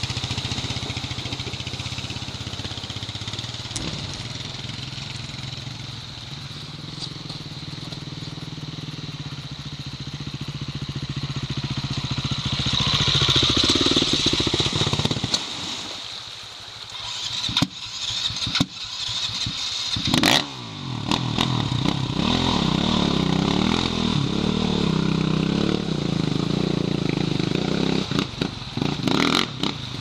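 Trail motorcycles running as they ride through a shallow, rocky creek, with water splashing under the wheels; a second bike ploughs through, loudest about halfway. From about two-thirds of the way through, a nearer engine idles steadily.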